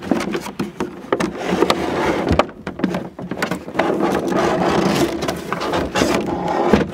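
Clear plastic wrapping crinkling and cardboard scraping as a boxed plastic circular knitting machine is handled and slid out of its box, with many small clicks and rustles.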